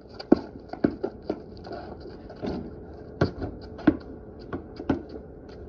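Basketball bouncing on a paved court, a string of sharp, separate bounces at an uneven pace of roughly one or two a second.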